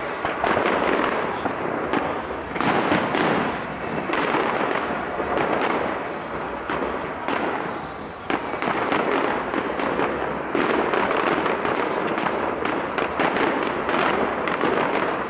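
Fireworks display: many shells bursting at once in a rapid, continuous run of popping and crackling, which eases briefly about eight seconds in before building again.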